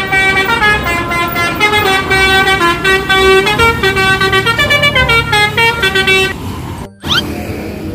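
Indonesian 'telolet' bus air horn playing a quick tune of short stepped notes, several tones sounding together, loud and steady until it stops about six seconds in.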